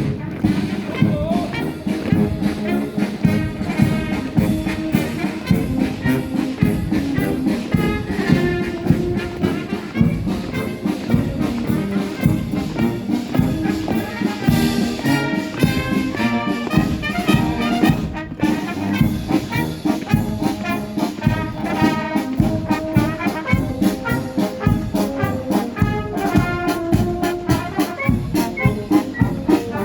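Military brass band playing a march, with trumpets and trombones over a steady drum beat.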